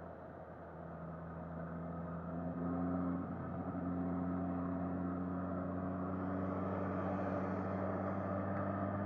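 2019 Suzuki Katana's inline-four engine under way, picking up revs and getting louder a couple of seconds in, then holding a steady note at cruising speed in second gear.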